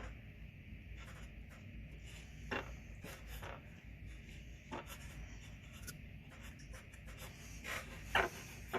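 Faint scraping and handling of small parts, with a few short sharp clicks, the loudest two near the end, over a steady low hum.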